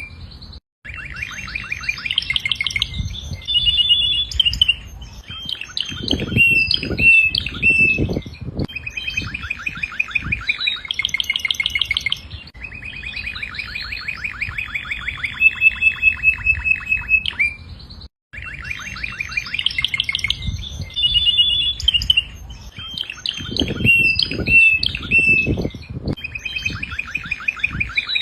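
Domestic canary singing a long song of rapid trills, rolls and whistled notes that repeat phrase after phrase, broken by two brief gaps, one near the start and one about two-thirds through. A low rumble sounds under the song twice.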